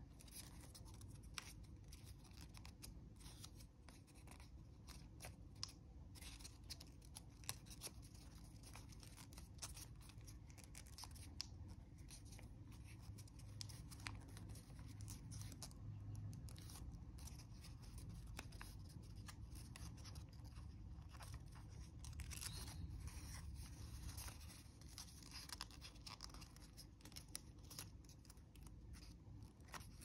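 Faint crinkling and small crackles of a sheet of origami paper being folded and pinched into shape by hand, in irregular bursts.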